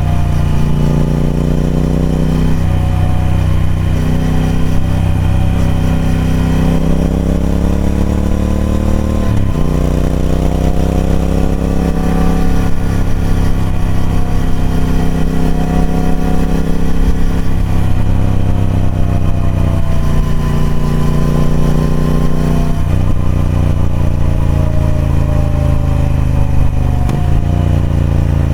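Triumph Speed Twin 1200's parallel-twin engine on its stock exhaust, ridden with the engine note rising and falling with the throttle. It breaks off sharply three times, about a third of the way in and twice near the end, like gear changes.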